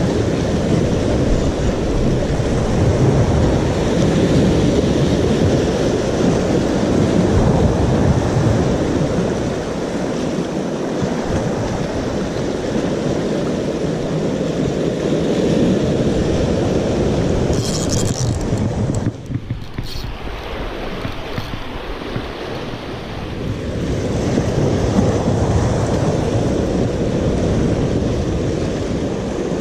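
Sea surf breaking and washing over shore rocks, mixed with wind buffeting the microphone; the rush eases briefly about two-thirds through.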